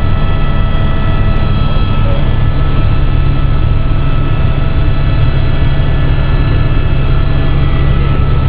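Small aircraft's engine noise heard from inside the cabin: a loud, steady drone with a few constant whining tones above it.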